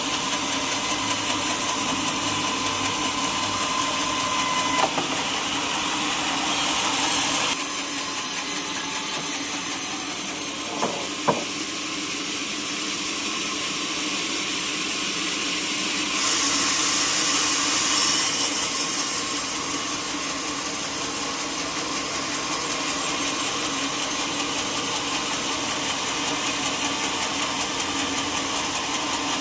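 Sawmill saw machinery running steadily, a mix of engine hum and saw noise that shifts in tone a few times, with a sharp knock about eleven seconds in.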